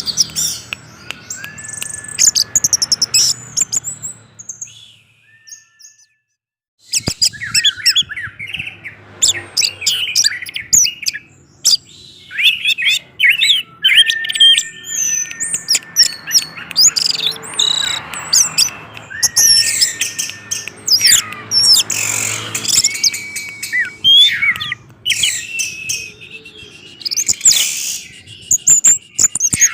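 Orange-headed thrush singing a fast, varied song of rich whistles, quick downward slurs and sharp high notes. The song breaks off for a moment about five seconds in and comes back abruptly about seven seconds in.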